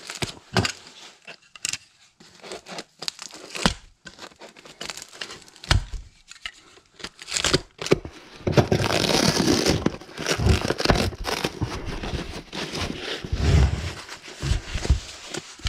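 Tape being torn and pulled away and white wrapping and foam sheet crinkling and rustling as a package is unwrapped by hand, with scattered rustles and clicks and a longer spell of ripping and rustling about halfway through.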